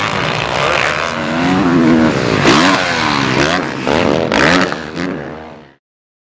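Honda CRF450 single-cylinder four-stroke motocross engine revving up and down as the throttle is worked over the jumps, rising sharply in pitch several times. The sound cuts off suddenly near the end.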